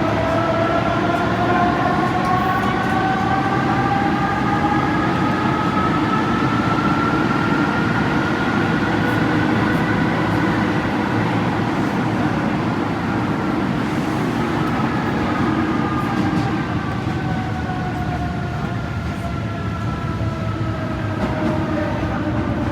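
Paris Métro MF67 train's traction motors whining as it pulls away. Several tones rise steadily in pitch for about ten seconds, level off, then fall away in the second half as it slows, over a steady running rumble. The motor sound closely resembles that of the MS61.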